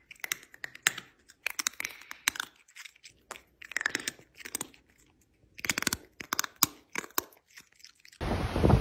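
A cat chewing close to the microphone: bouts of sharp, crisp clicks with a short pause about halfway. Near the end it cuts abruptly to wind on the microphone and breaking surf.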